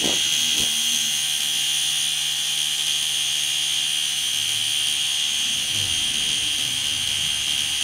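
Portable battery-powered pressure washer running at about 400 PSI, its pump giving a steady high whine over the hiss of the water jet spraying onto concrete.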